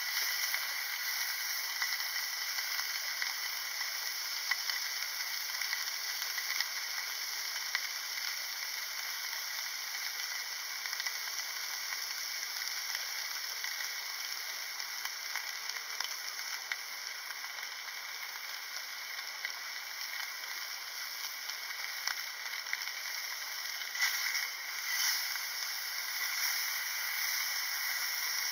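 Thin slices of beef sizzling in a frying pan, a steady crackling hiss with scattered small pops, and a couple of louder bursts near the end.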